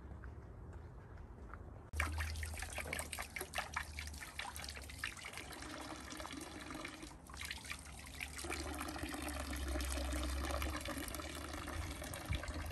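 Water trickling from a fountain spout into a stone trough, splashing over hands held in the stream. It starts about two seconds in, full of small splashes at first, then runs steadier.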